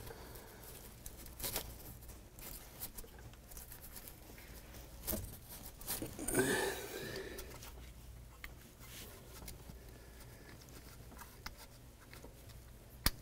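Faint scattered clicks, rustling and scraping of hands working the spark plug wires at the engine's distributor, with a sharp click near the end.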